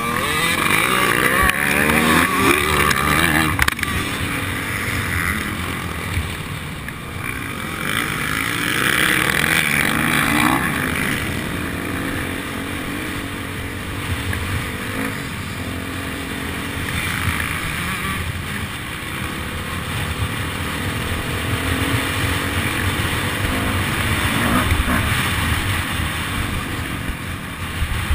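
Motocross bike engine heard from an onboard camera, revving up and dropping back again and again as the rider accelerates and shifts through the gears.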